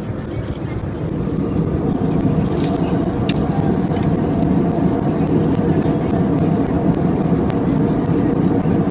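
Steady cabin noise of an Airbus A320-200 in cruise: an even, low rush of airflow and engine hum, growing a little louder about two seconds in. A few faint clicks.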